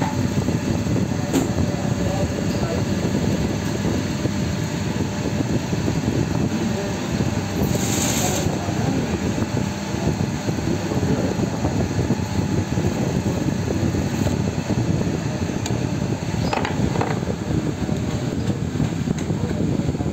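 Steady, loud mechanical rumble, with a short high-pitched hiss about eight seconds in.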